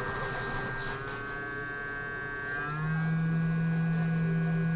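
Hot air rework station's blower running with a steady electric hum. About two-thirds through, its tone glides up and it settles into a louder, steady drone as the air is set to full speed to cool the hot air gun quickly.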